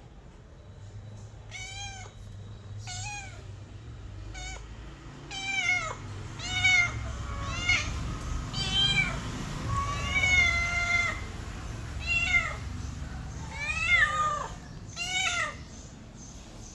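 Domestic cat meowing: a string of a dozen or more short, high meows, each rising then falling, one held a little longer about ten seconds in.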